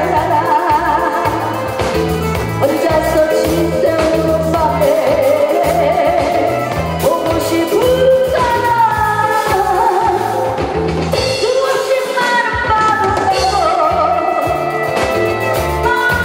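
A woman singing a slow melody into a microphone, holding wavering notes, over amplified backing music with a steady bass and drum beat.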